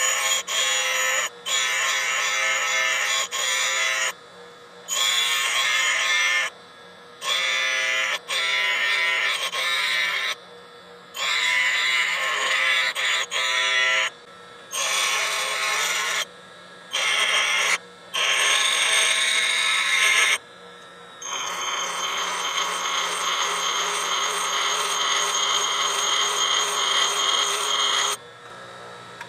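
A high-speed steel tool bit being ground against a bench grinder's wheel, in a series of short passes of one to three seconds as the bit is pressed on and lifted off. Near the end comes one longer steady pass of about seven seconds, with the grinder motor humming underneath throughout.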